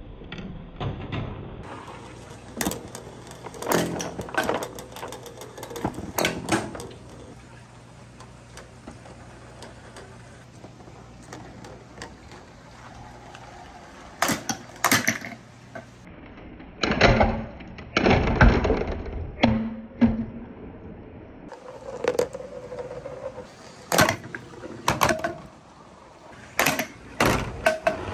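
Balls from a marble run knocking and rolling through a long transparent plastic pipe: scattered sharp clicks and clacks, with a longer rolling rumble a little past the middle.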